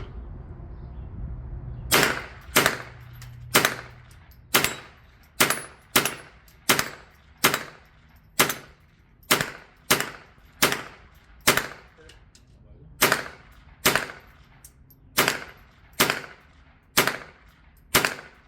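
A .22LR firearm firing a long, steady string of single shots at steel targets: about twenty sharp cracks, the first about two seconds in, mostly a little under a second apart with a few longer pauses between targets.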